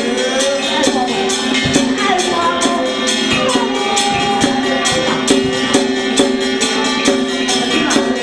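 Taoist ritual music: a steady, quick percussion beat with sustained tones underneath and a chanted vocal line gliding over it.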